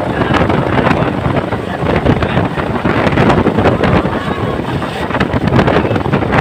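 Helicopter engine and rotor running close by, a loud steady din with rotor wash buffeting the microphone.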